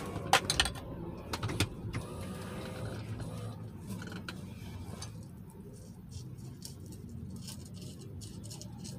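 Street traffic: a steady low engine rumble with a car driving past close by. Several sharp clicks and rattles come in the first two seconds.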